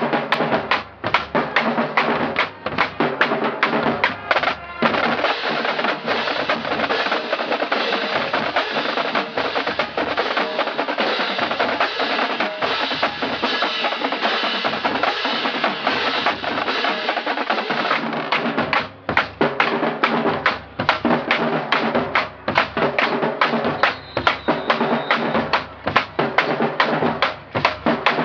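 Marching drumline playing a cadence, snare drums rattling fast strokes over a bass drum pulse. From about five seconds in the strokes run together into a dense, near-continuous roll, then break back into separate hits after about eighteen seconds.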